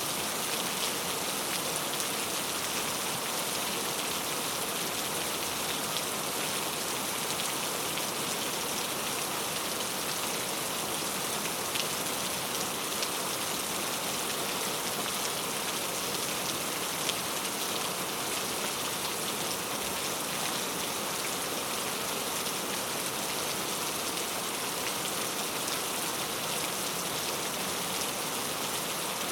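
Steady rainfall: a continuous hiss of rain with many small drops pattering on surfaces.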